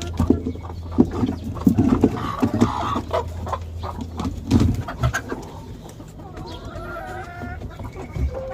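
Chickens clucking in a poultry house, with many short sharp clicks and a drawn-out call about seven seconds in. A steady low hum runs under the first half and then stops.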